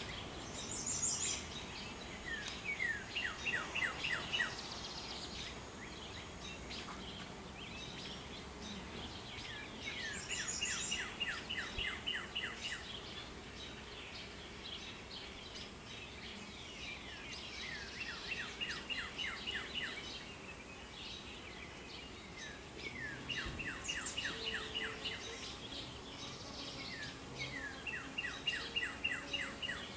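A songbird singing the same short trilled phrase, a quick run of about eight to ten sweeping notes, five times at intervals of roughly six or seven seconds, with a couple of thin, very high calls between phrases.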